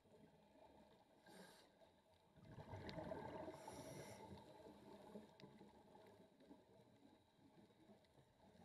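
A scuba diver breathing through a regulator, heard faintly through an underwater camera housing: a short hiss about a second in, then a louder swell of exhaled bubbles lasting two to three seconds that fades away.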